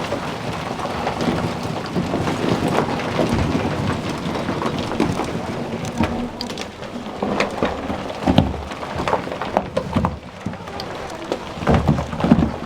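Footsteps scuffing and sliding on crumbly chalk steps, with clothing and handling noise rubbing close to the microphone. There are scattered knocks throughout and a couple of heavier thumps, one about two-thirds of the way in and one near the end.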